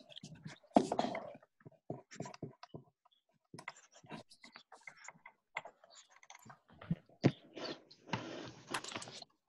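Irregular soft clicks and taps with short stretches of rustling, coming in uneven bursts with brief silent gaps.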